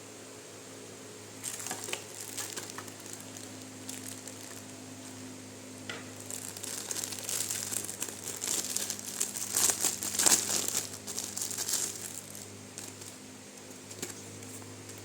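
Packaging being crinkled and torn open in irregular bursts, busiest and loudest about ten seconds in, over a steady low hum.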